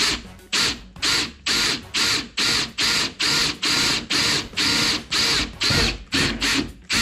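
Cordless Makita drill run in short, evenly spaced trigger bursts, about two a second, as a drill bit cuts through the car's door panel to enlarge a hole step by step.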